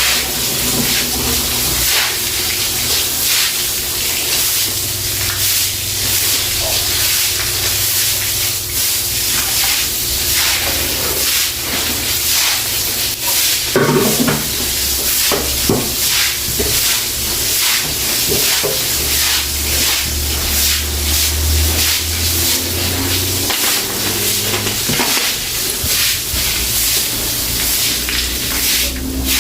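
Stiff broom scrubbing a wet floor: a continuous wet, hissing scrape made of many short, irregular strokes.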